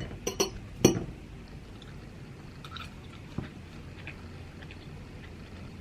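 A person biting into and chewing food close to the microphone: a few sharp mouth clicks in the first second, then faint, scattered chewing sounds.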